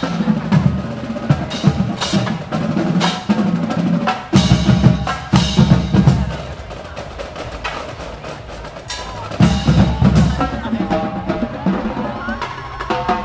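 Marching band drumline playing a loud cadence of snare drums, bass drums and crash cymbals. It drops to a softer passage about halfway through, then comes back in full with cymbal crashes a few seconds before the end.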